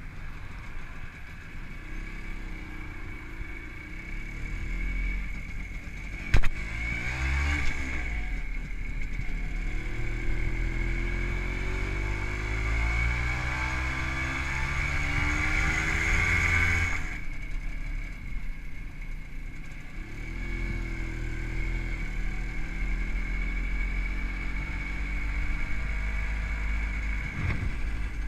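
WSK 125's two-stroke single-cylinder engine, fitted with a Dellorto PHBG carburettor and CDI ignition, pulling away from a standstill and accelerating, its revs climbing and then dropping sharply at a gear change about two-thirds of the way in, before running more evenly with smaller rises. A sharp click about six seconds in.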